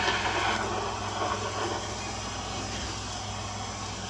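Steady hiss of rain, with a louder swell over the first second or so before it settles back.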